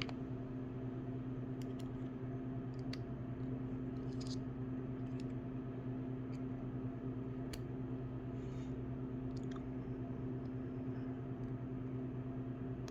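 Faint, irregular clicks of bits and sockets being handled and fitted into a flex-head ratchet, over a steady low hum.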